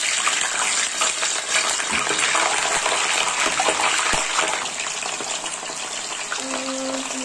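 Hollowed-out potatoes deep-frying in hot oil: a steady hiss and crackle of sizzling oil, with a couple of faint knocks as potatoes go into the pan.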